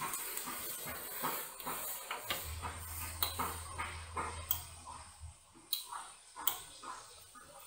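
Irregular light clicks and knocks, with a low hum that comes and goes.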